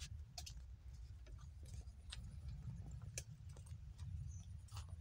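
Wind buffeting the phone's microphone: a steady, fluttering low rumble, with a scattering of faint clicks.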